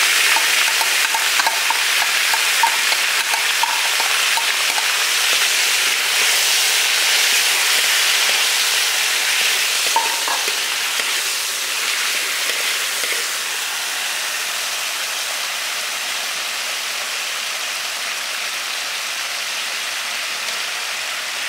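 Pieces of coconut rat meat, just put into a hot pan of oil, sizzling and frying. The sizzle is loudest at first and eases off gradually as it goes on.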